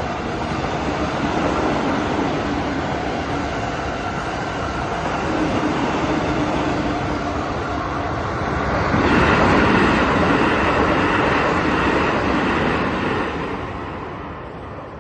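JR train running past over the level crossing, its wheels rolling on the rails. It gets louder about nine seconds in and then fades over the last couple of seconds.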